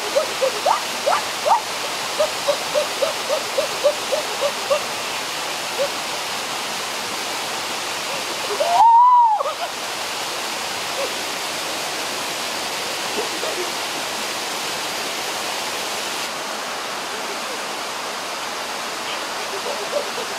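Waterfall rushing steadily into a rocky pool. In the first few seconds a run of short, high-pitched chirps repeats about three times a second, and about nine seconds in one louder tone rises and falls.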